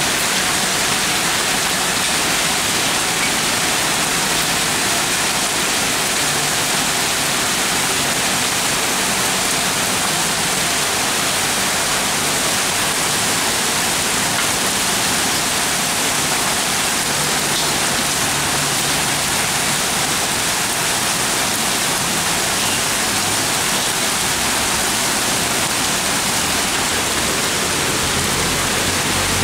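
Heavy rain mixed with hailstones pelting the ground, a dense, steady hiss.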